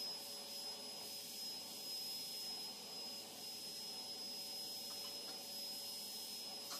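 Steady machine hum and hiss with a constant high-pitched whine.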